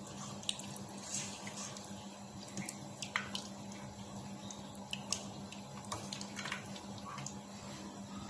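A plastic spoon stirring a steaming tomato-based stew in an electric pressure cooker's inner pot: liquid sloshing and bubbling, with scattered light clicks of the spoon against the pot over a steady low hum.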